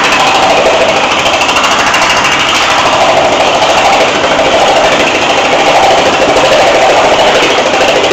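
Self-made power hammer rapidly hammering a sheet-steel panel held between its dies: a loud, fast, continuous clatter of metal-on-metal blows that keeps up steadily while the panel is moved about under the hammer.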